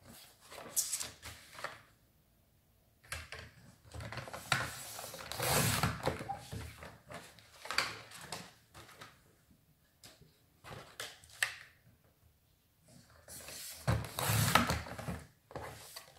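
Card being handled and cut on a sliding paper trimmer: a series of separate scraping, rustling strokes a second or two long as the cutting head is run along its rail, with a few clicks. The blade is dull enough that the cut card frays a little.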